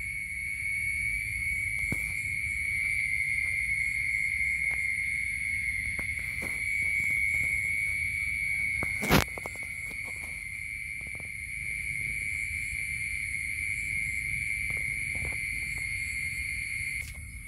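Insects calling outdoors at dusk: a steady, high-pitched chorus that stops abruptly shortly before the end. A single sharp click comes about nine seconds in.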